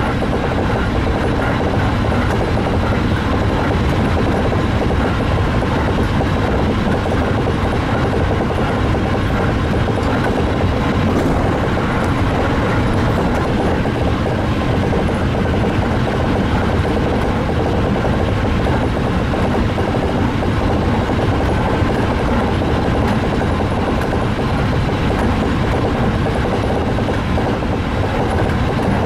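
A Tsukuba Express TX-2000 series electric multiple unit running steadily, heard from inside the leading car behind the driver's cab: an even rumble of wheels on rail and running noise, with a faint steady high tone above it.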